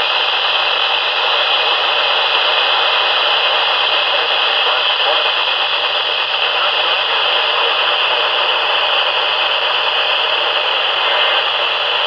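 Steady hiss of static from a Midland NOAA weather radio's speaker, with a faint low hum underneath.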